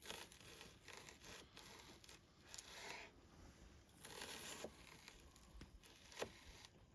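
Near silence with a few faint, brief scraping sounds of a knife cutting food.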